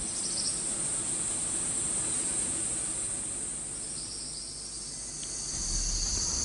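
Insect chorus of a tropical forest: a steady high-pitched drone, joined about four seconds in by a second, lower-pitched insect song, over a soft background hiss.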